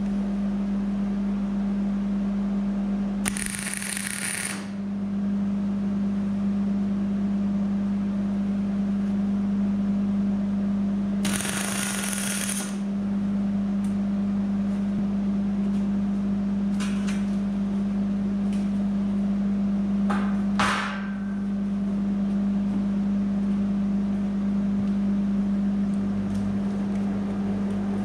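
MIG welding arc laying tack welds on a steel tube frame: two crackling bursts of a second or so, then a few very short ones, over a steady low hum.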